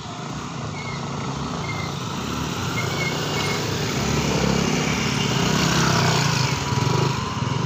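Small motorcycle engine running, growing louder as it comes closer over the first six seconds or so, then easing off near the end.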